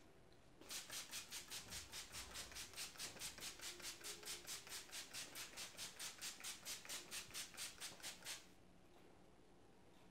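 Hand trigger spray bottle spritzing onto hair in quick repeated squirts, about four a second, each a short hiss. The spraying starts about half a second in and stops about a second and a half before the end.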